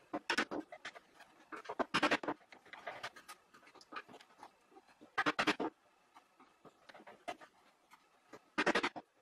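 A hand tool scraping and cutting across wood in short bursts of quick strokes, four main bursts a few seconds apart.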